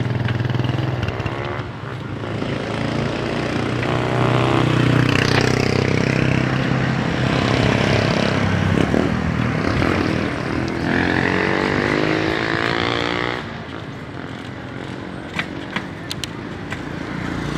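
Motorcycle engine running on the move, its note rising as it speeds up and easing off a few seconds before the end, with passing traffic around it.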